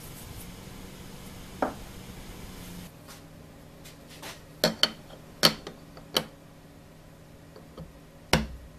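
Machined aluminum vacuum pod being set down and shifted into place on an aluminum vacuum plate: a handful of sharp metal clinks and knocks, the loudest near the end.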